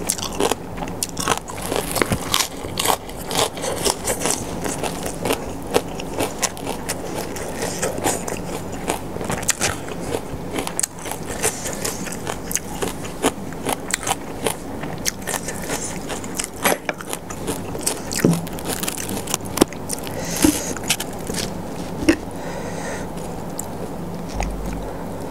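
Close-miked crunching and chewing of crisp fresh lettuce leaves and spicy green papaya salad: a rapid run of sharp crunches and mouth sounds that thins out near the end.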